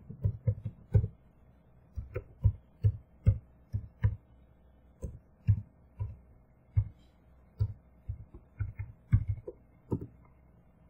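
Computer keyboard keys typed in irregular bursts of clicks with short pauses, stopping shortly before the end. A faint steady hum runs underneath.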